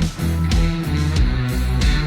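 Rock-style music with guitar and a steady drum beat.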